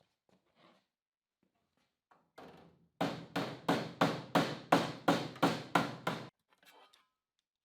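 A hand tool worked on sheet metal in a quick even rhythm: about ten sharp strokes, roughly three a second, after a fainter lead-in stroke.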